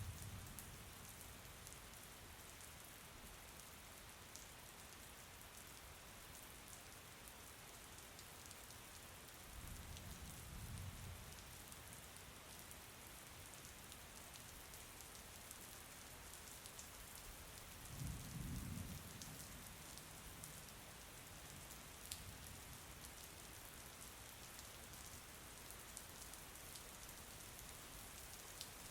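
Faint, steady rain falling, a fine hiss with the tick of individual drops, broken by two brief low rumbles about ten and eighteen seconds in.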